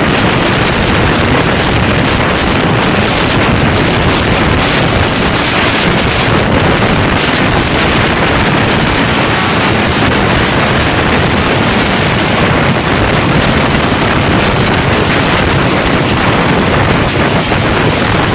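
Steady loud rush of wind on the microphone mixed with the running noise of a moving passenger train.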